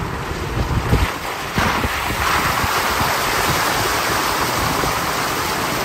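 Water splashing and spraying off the front tyre of a 2020 Toyota 4Runner TRD Pro as it drives through a muddy puddle: a steady rushing wash that swells about a second and a half in.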